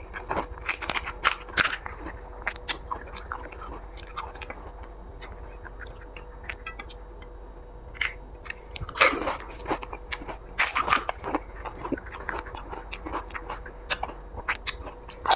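Panipuri (fuchka) being eaten: crisp puri shells crunching between the teeth and wet chewing, in irregular bursts. The crunches come thickest about a second in and again from about 9 to 11 seconds, with a faint steady hum underneath.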